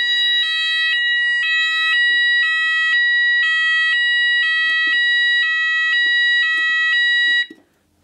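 Fire alarm sounders driven by a Menvier (Alto) MF200 fire alarm panel, set off from a manual call point: a loud steady high tone together with a two-tone signal that switches pitch about every half second. The alarm cuts off suddenly near the end.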